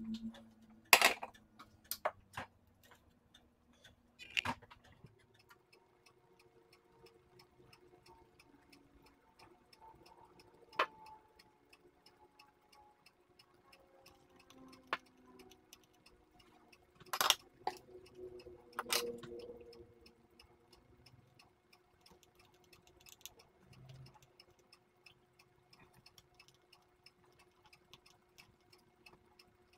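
Scattered clicks and knocks of a soldering iron, desoldering braid and circuit board being handled on a workbench during desoldering. They sound over a faint, steady ticking, and the loudest come about a second in and a little past the middle.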